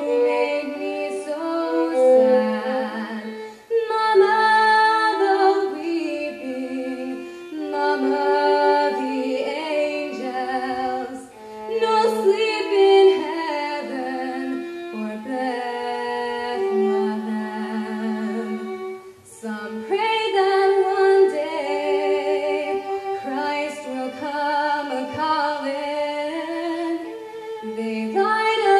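A young woman singing a slow solo song into a handheld microphone, over instrumental accompaniment. Her voice wavers with vibrato on long held notes, in phrases broken by short pauses about 4, 11 and 19 seconds in.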